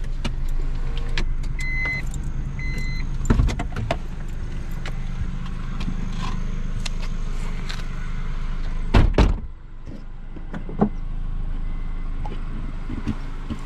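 1993 Acura Integra's four-cylinder engine running steadily, heard from inside the cabin with small clicks and rattles and two short high beeps about two seconds in. About nine seconds in, a car door slams loudly, and the engine is then heard more faintly.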